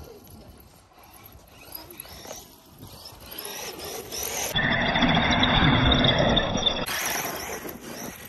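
Traxxas E-Revo 2.0 RC truck's electric motor whining up and down in pitch as it is throttled across loose sand. A louder, rougher rushing noise takes over about halfway through and lasts a couple of seconds.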